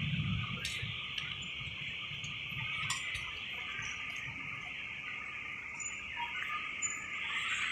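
City street ambience: a steady high hiss over faint distant traffic rumble, with a few small ticks.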